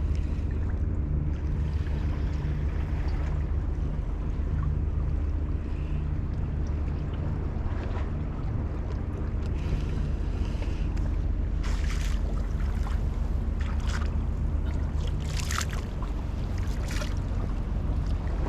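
A steady low engine drone with wind on the microphone, and several brief swishing noises in the second half.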